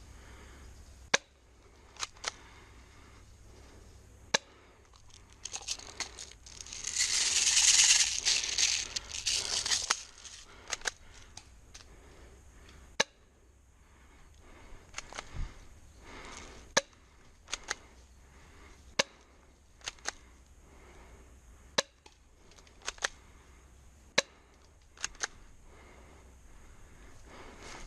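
Airsoft guns firing single shots: sharp pops spaced a second or more apart, some in quick pairs. A louder rustling, hissing noise lasts about three seconds early on.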